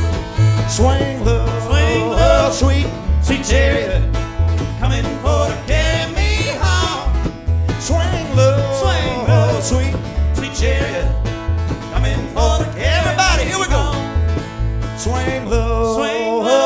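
Live acoustic country string band playing an instrumental passage: an upright bass plucks a steady alternating two-note pattern under strummed guitar and a lead line whose notes bend in pitch. The bass stops near the end.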